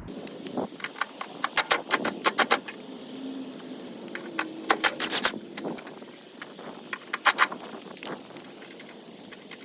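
Ratchet with a 13 mm socket clicking in short, quick runs, with pauses between them, as the bolts of the fender-to-engine-mount bracket are loosened.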